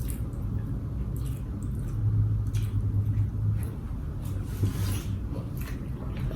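Close-miked eating sounds: chewing and soft wet mouth noises with scattered light clicks, over a steady low hum.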